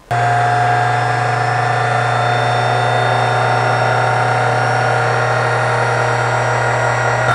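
Small benchtop drill press motor running at a steady speed with a fine bit drilling into a small metal part in a machine vise; a steady hum and whine that cuts in suddenly.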